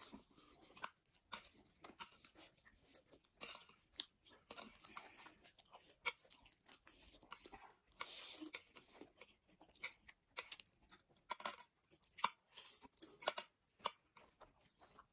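Two people eating instant ramen noodles with chopsticks: soft slurps of noodles and chewing, with scattered short clicks and smacks.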